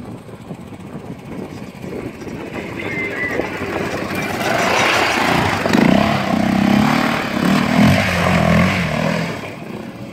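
Yamaha Raptor 700R quad's single-cylinder engine revving under throttle. It grows louder from about four seconds in, rising and falling in pitch as the throttle is worked, and eases off again near the end.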